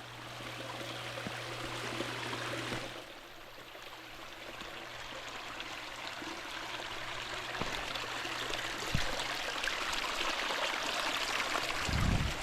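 Small creek running over rocks, its rushing growing steadily louder after a dip about three seconds in, with a low thump near the end.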